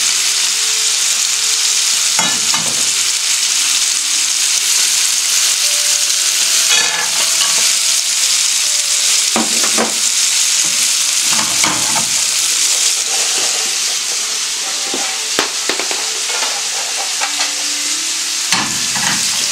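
Cashew nuts and chicken pieces sizzling in hot oil in non-stick frying pans, a steady hiss. A wooden spatula stirs the food, knocking and scraping against the pan now and then.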